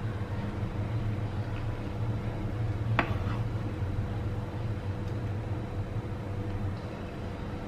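Steady low hum, with one sharp knock of a kitchen knife on a wooden cutting board about three seconds in.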